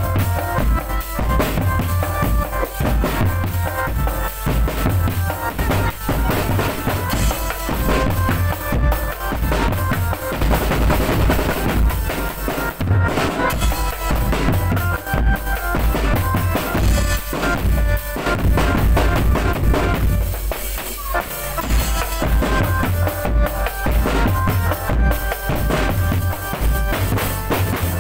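Drum band playing a fast, loud, steady beat: booming bass drums with rattling snare drums and rim strikes, with some pitched melody running over the top.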